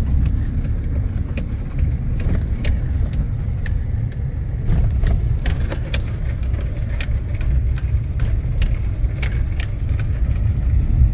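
Vehicle cabin noise on a rough dirt road: a steady low rumble with frequent sharp rattles and clicks scattered throughout.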